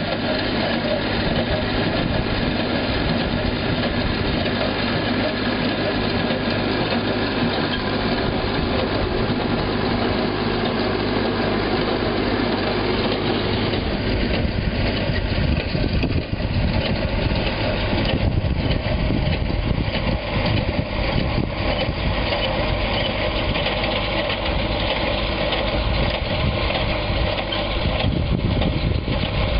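An engine running steadily, a continuous mechanical drone whose sound turns lower and heavier about halfway through.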